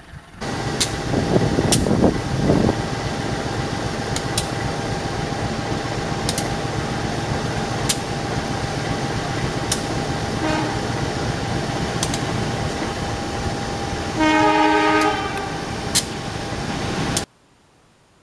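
CC203 diesel-electric locomotive hauling a passenger train, its engine and wheels running steadily with a steady high squeal and scattered sharp clicks. It sounds its horn once for about a second near the end, and the sound cuts off suddenly just before the end.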